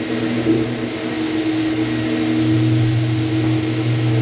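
Rotary floor buffer running steadily as it screens a finished hardwood floor between coats of finish: a constant motor hum with a hiss from the screen on the floor.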